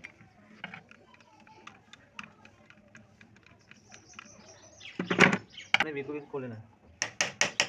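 Metal clicks and taps from a hand-crank sewing machine's crank and handwheel parts being handled and loosened. Near the end comes a quick run of sharp metallic clicks, about six a second.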